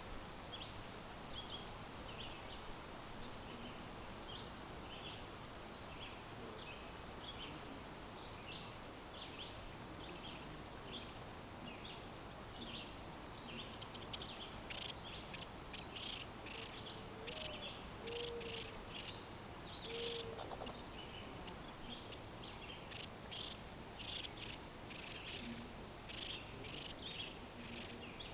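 Crickets chirping in short, high pulses that come thicker from about halfway through, over a steady hiss. A few faint low whistled notes sound near the middle.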